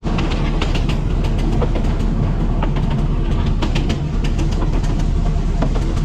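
Train running along the track: a steady low rumble with sharp clicks of the wheels passing over rail joints, several a second.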